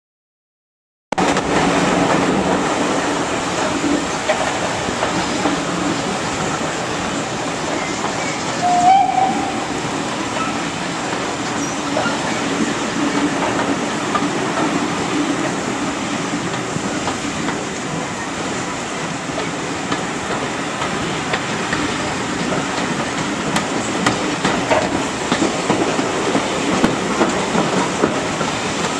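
Steady rumble and clickety-clack of a passenger carriage running along the rails, heard from aboard the moving train. A short whistle sounds about nine seconds in.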